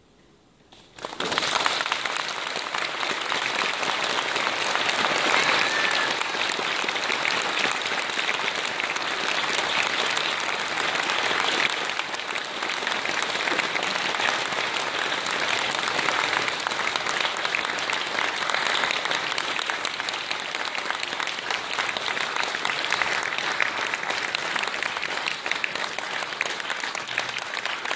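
Audience applauding. It bursts in suddenly about a second in, after a moment of quiet, and carries on steadily.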